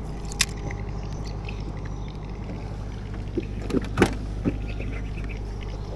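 An engine's steady low drone, with a few sharp clicks and knocks, one about half a second in and a small cluster around four seconds in.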